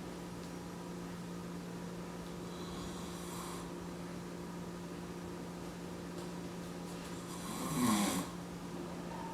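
A man snoring in his sleep: a soft breath about three seconds in, then one loud snore near the end.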